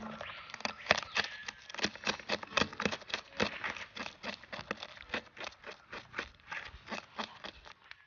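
A knife scraping the scales off a small fish against a wooden board, in rapid repeated strokes, several a second, that grow fainter toward the end.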